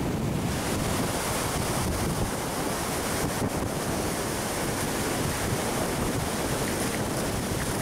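Surf breaking and washing up the beach, mixed with wind buffeting the microphone, a steady rush.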